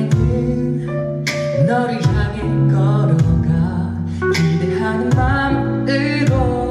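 A male pop vocalist singing live over a K-pop backing track with sustained bass notes and regular drum hits.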